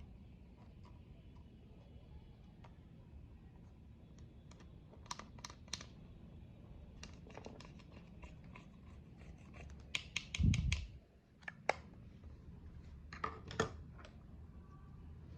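Crunchy slime being squeezed and worked by hand, giving several bursts of small crackling clicks. About ten seconds in there is one dull low thump, the loudest sound.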